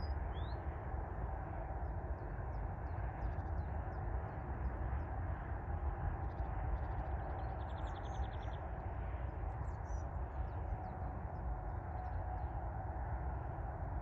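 Small birds chirping now and then over a steady low background rumble, with a quick rapid trill about seven seconds in.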